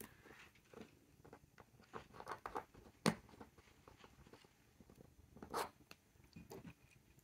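Faint handling noises of small objects on a tabletop: light taps and rustles, a sharp click about three seconds in, and a short burst of rattling about five and a half seconds in as a small ink sample vial is picked up and shaken.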